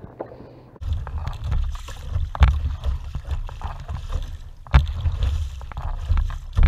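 Kayak paddling on choppy seawater: a double-bladed paddle dipping and splashing stroke after stroke, with wind rumbling on the camera microphone. Two sharper knocks or splashes stand out, about two and a half seconds in and again near five seconds.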